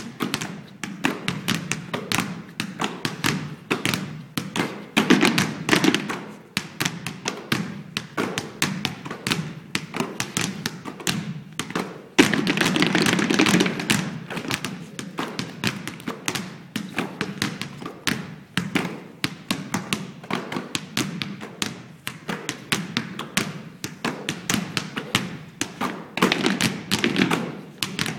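Several basketballs bounced in rhythm on a stage floor as percussion, a fast, dense pattern of thuds. About twelve seconds in, a louder stretch of noise lasts about two seconds.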